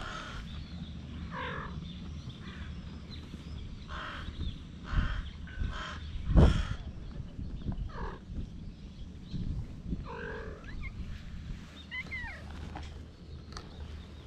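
Several short animal calls in a series, with a loud knock about six and a half seconds in and a brief high chirp near the end.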